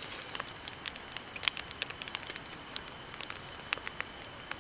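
Crickets chirping in a steady, high, unbroken trill, with a few scattered light clicks and taps over it.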